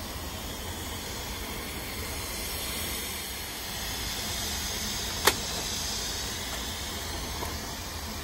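Steady hiss of steam from a narrow-gauge steam locomotive's safety valve just starting to lift, with a sharp click about five seconds in.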